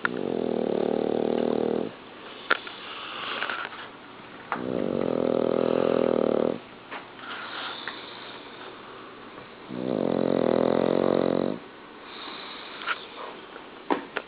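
A sleeping pet snoring loudly: three long snores, each about two seconds, some four seconds apart, with softer breathing and a few small clicks in between.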